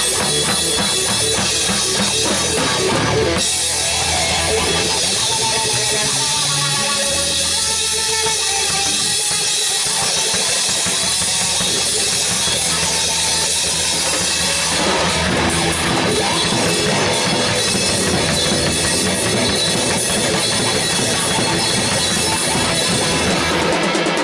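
Live rock band playing loudly: a Pearl drum kit with crashing cymbals, electric bass and electric guitar. About three seconds in the low end thins out for roughly ten seconds, leaving mostly drums and cymbals, before the full band fills back in.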